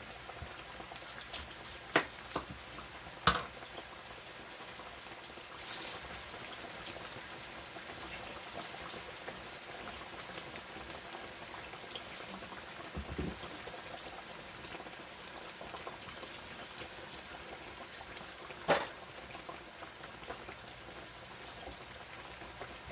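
Steaks frying in oil and gravy bubbling in two skillets on the stove: a steady sizzle and simmer, with a few sharp knocks, loudest near the start and again late on.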